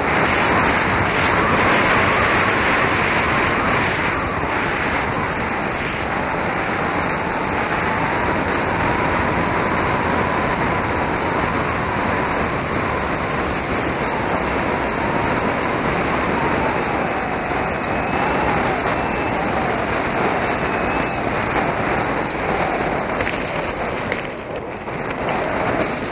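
Loud wind rush over the onboard camera of an electric RC model plane in flight, with the whine of its motor and propeller wavering in pitch under it. The noise falls away over the last two seconds as the plane comes down onto the runway.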